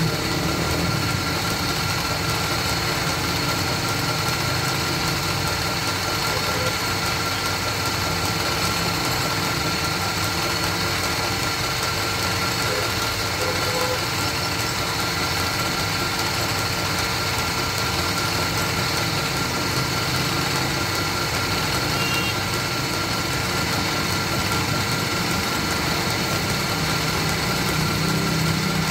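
Belt-driven wood lathe running steadily, its motor giving a constant hum with a steady high whine, as a turned wooden bed leg spins under a hand-held polishing cloth.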